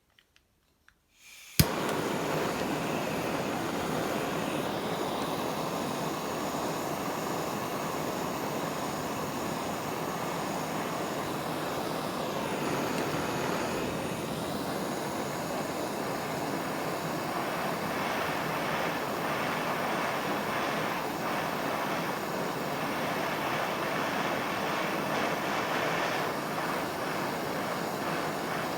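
Jeweller's gas torch switched on and lit with a sharp click about a second and a half in, then a steady flame hiss as it heats an Argentium sterling silver ring band to flow hard solder into a gap.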